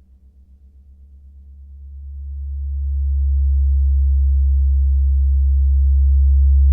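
Deep, almost pure low hum of a large gong swelling up over about two seconds, then holding loud and steady.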